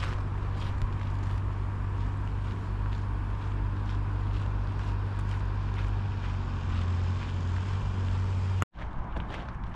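A large engine idling with a steady low hum, with faint footsteps over it. The hum stops abruptly near the end, leaving only the footsteps.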